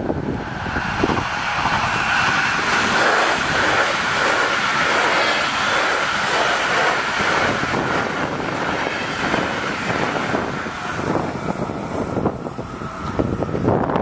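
Two coupled NSB Class 74 Stadler FLIRT electric multiple units passing at speed: wheel and rail noise builds within the first second or two and slowly eases toward the end. A steady high tone runs through most of the pass and fades near the end.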